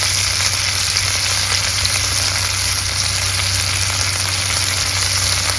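Food sizzling steadily in a hot cast iron skillet, with a low hum underneath.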